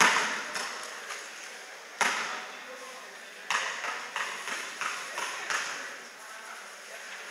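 A ball being hit or bounced in a large, echoing sports hall: several sharp smacks, the strongest at the start, about two seconds in and about three and a half seconds in, with lighter knocks between them.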